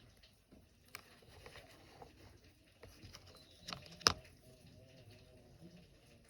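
Light scattered clicks and knocks of handling in a kitchen, with one sharp knock about four seconds in.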